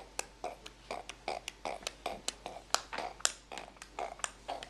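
An 11-month-old baby imitating a pig with a quick series of short, quiet sounds, several a second.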